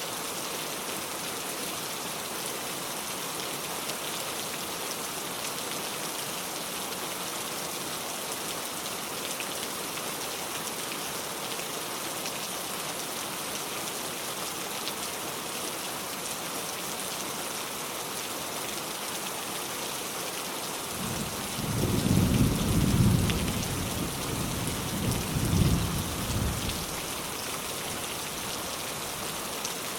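Steady rain falling, with a low rumble of thunder about two-thirds of the way through that swells twice, then fades back under the rain.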